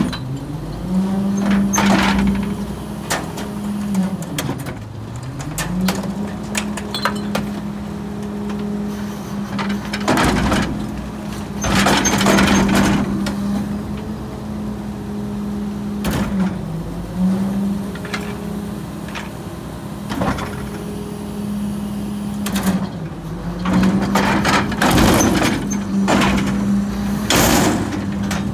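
Garbage truck's engine held at a steady speed, dropping and climbing back up a few times. Loud clattering and banging bursts from the collection equipment come several times, the longest about ten seconds in.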